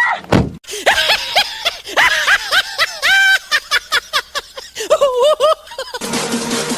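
A high-pitched voice giggling in a quick run of short, arching, laugh-like calls, a few a second, after a brief low thump just under half a second in.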